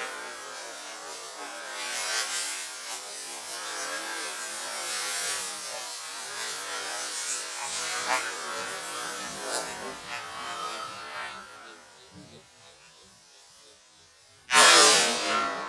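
Dry reeds rustling and brushing against the camera as the hunter pushes through a reed bed. After a short lull near the end comes a single loud shotgun shot that fades over about a second.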